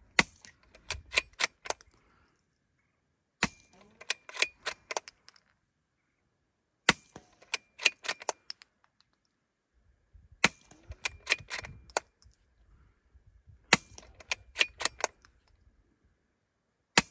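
Suppressed .22 LR shots through a Little Spoon silencer, about one every three and a half seconds, six in all. Each shot is a sharp crack followed at once by a quick run of sharp clicks and a faint metallic ring.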